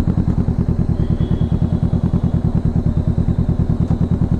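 Kawasaki motorcycle engine running steadily, its exhaust giving an even, quick pulsing beat at a constant pitch.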